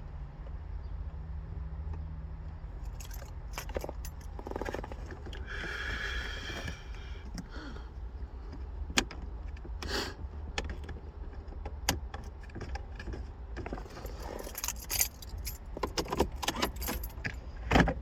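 Keys jangling, with scattered clicks and rattles from hand work on a car's gear-shifter console, over a steady low rumble. A short, higher-pitched sound comes about six seconds in.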